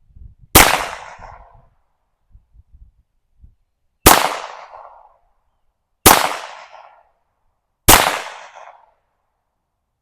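Four shots from a 1948 Colt Woodsman semi-automatic .22 LR pistol, each a sharp crack with a short echo trailing off. The first comes on its own about half a second in, and the other three follow about two seconds apart.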